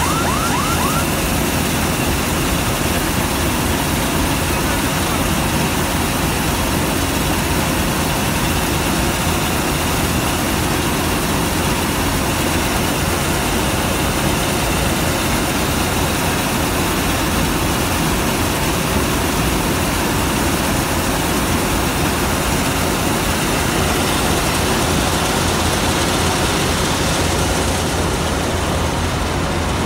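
Malkit 997 combine harvester running steadily at working speed, its engine and threshing and unloading mechanisms making a loud continuous drone as the unloading auger pours paddy grain. A fast repeating electronic warble sounds during the first second.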